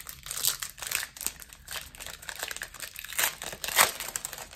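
Foil wrapper of a Pokémon TCG booster pack crinkling as it is torn open by hand, a run of crackles with one louder crackle near the end.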